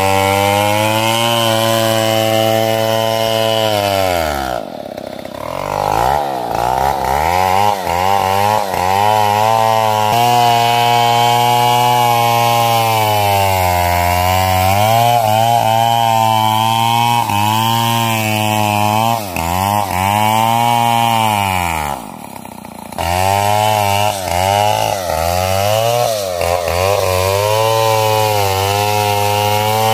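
Stihl MS 070 two-stroke chainsaw cutting through the trunk of a large sengon tree at full throttle, its pitch sagging and recovering repeatedly as the bar bogs in the wood. Twice it briefly drops back toward idle, then revs up again.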